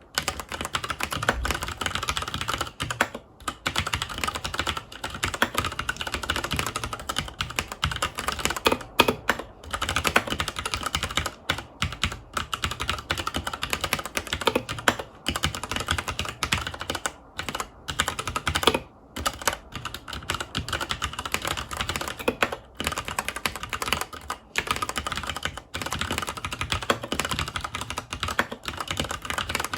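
Continuous fast typing on a FILCO Majestouch 2 HAKUA tenkeyless mechanical keyboard with Cherry MX Brown switches: a dense run of key clacks with a few brief pauses.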